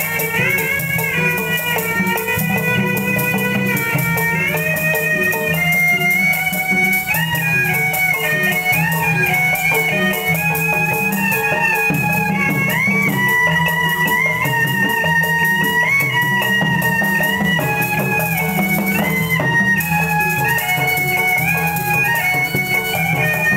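Betawi music of the kind played for ondel-ondel dancing: a melody with sliding notes over a steady low accompaniment, playing without a break.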